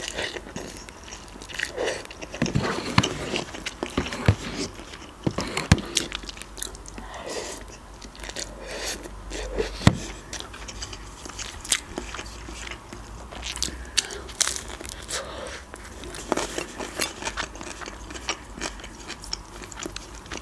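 Close-miked eating: instant noodles slurped off a fork, then steady chewing with wet mouth noises and small irregular clicks. One sharper click comes about ten seconds in.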